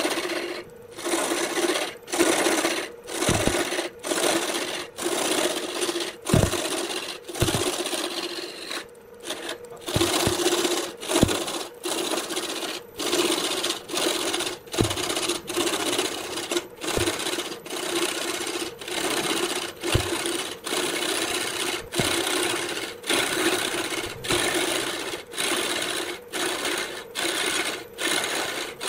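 Wood lathe spinning a glued-up block cylinder, with a turning tool cutting it: a steady motor hum under a rasping cut that comes and goes in regular strokes, about one and a half a second.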